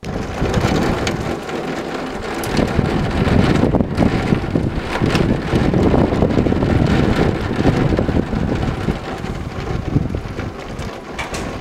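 Heavy rain mixed with small hail pouring down in a thunderstorm, a dense loud hiss with scattered sharp ticks, while gusty wind rumbles on the microphone.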